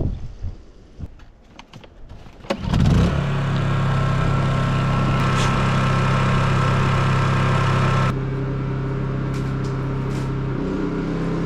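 Honda EU2200i inverter generator starting about two and a half seconds in and running at a steady speed. Near the end its engine steps up to a higher speed as the tractor's block heater load comes on, the sign that the block heater is drawing power.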